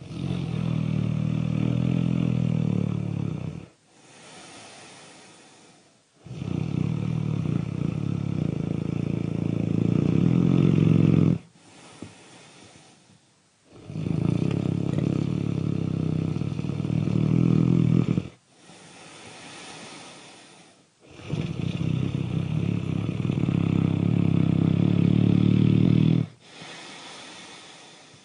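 Loud snoring in a steady repeating cycle, about four times over: a long low snore of three to five seconds, then a quieter, breathy breath of two to three seconds.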